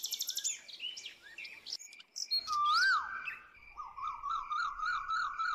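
Birds chirping and whistling. A fast, buzzy trill at the start gives way to assorted short chirps and a rising-and-falling whistle about halfway through, then a run of quick repeated notes near the end.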